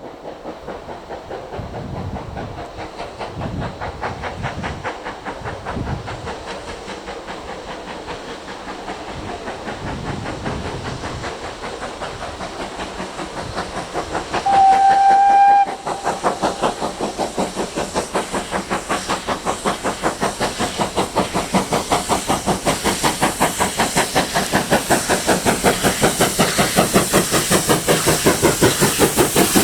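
Steam locomotive working with a regular beat of exhaust chuffs that grows steadily louder as it draws near. About halfway through, its whistle gives one short blast of about a second, the loudest sound, and steam hiss builds toward the end.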